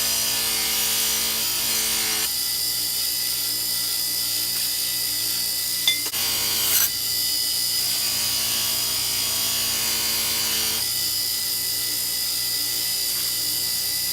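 Electric grinder running steadily while a kitchen knife blade is sharpened on it. The sound thickens as the blade is pressed on for a pass during the first two seconds and again from about seven to eleven seconds in. A brief sharp knock comes about six seconds in.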